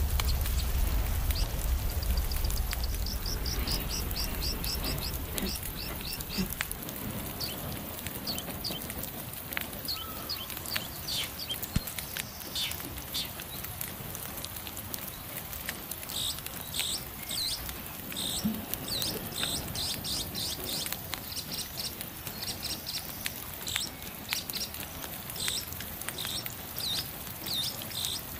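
Songbirds chirping in quick repeated runs of high notes, busier in the second half, with a wood campfire crackling now and then. A low rumble fades away over the first few seconds.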